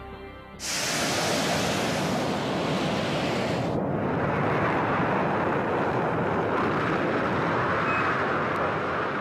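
Loud rushing hiss like radio static that starts suddenly about half a second in and turns duller after about three and a half seconds, with one short high beep near the end.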